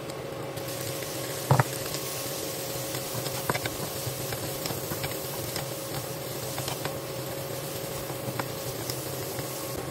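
Shrimp and squid sizzling in a hot wok, the sizzle getting stronger about half a second in as the seafood goes in, with one loud knock soon after and light clicks of a wooden spatula stirring against the pan.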